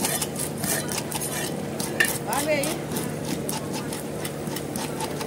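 A metal fish scaler scraping the scales off a small fish on a wet wooden chopping block, in quick repeated strokes, over a steady low hum.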